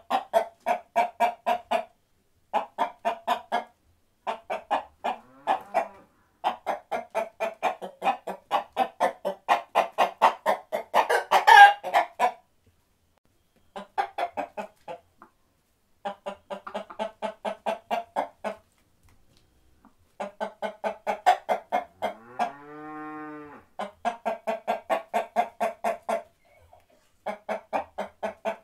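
Chickens clucking in fast, even runs of about five clucks a second, broken by short pauses. A louder squawk comes near the middle, and one long drawn-out call follows later.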